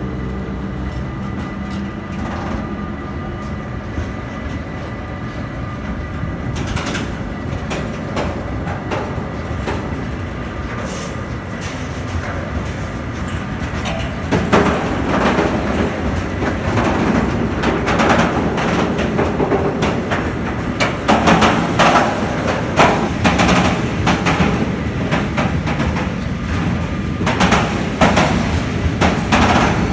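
Freight train of tank wagons rolling past at speed: a steady rumble with wheels clattering over the rail joints, the clattering growing louder and more frequent from about halfway through. In the first few seconds an electric locomotive's hum fades out as it moves away.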